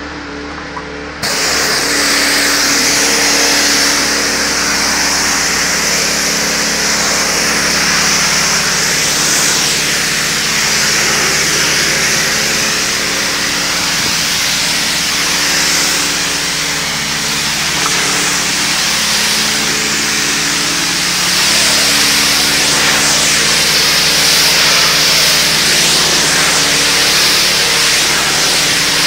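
Pressure washer at work: its engine runs steadily, and about a second in the wand's spray starts, a loud steady hiss of the water jet striking concrete.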